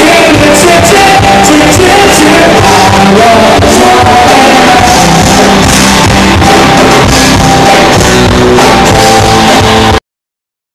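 Live rock band playing loud: drums with crashing cymbals, electric guitar and vocals, in a hall. The music cuts off abruptly about ten seconds in.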